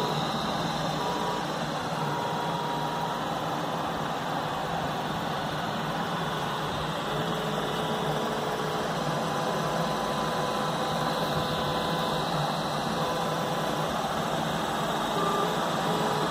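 DIY 3D printer running: a steady whir with stepper motors whining in short steady-pitched tones of varying length that start and stop as the print head traces the letters.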